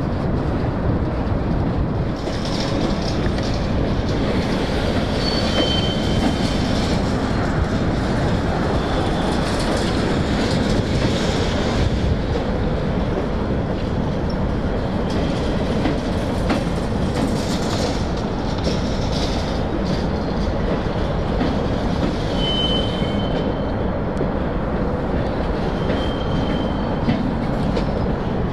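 Freight train cars rolling steadily along the track. A few short, high-pitched wheel squeals sound about five seconds in and again near the end.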